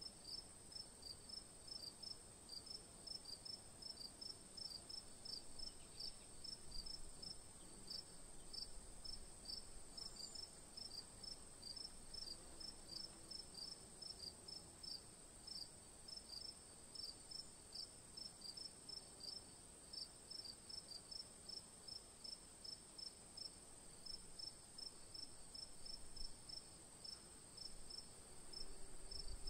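Faint crickets chirping in a steady rhythm, about three short high chirps a second, over a continuous high-pitched whine.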